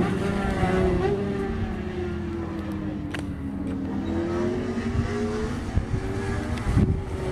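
Race sport-motorcycle engine running at high revs, heard at a distance: its pitch falls steadily for about three seconds as the bike slows, then climbs again as it accelerates away.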